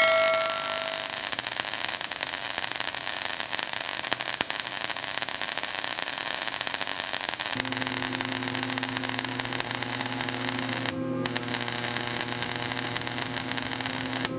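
Steady hiss and crackle of arc welding on steel hull plate, with a brief break about three-quarters of the way in. A low steady hum joins about halfway through.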